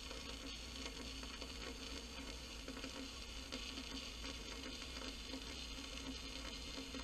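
Stick welding arc crackling and sizzling steadily as a bead is laid on steel.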